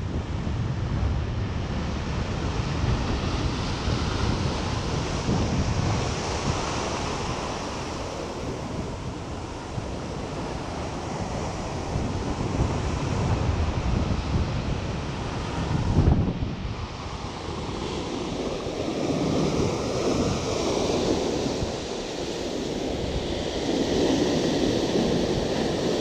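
Rough sea surf washing and breaking against rocks, with wind buffeting the microphone. The surge swells and eases, and there is one sharper loud moment about two-thirds of the way through.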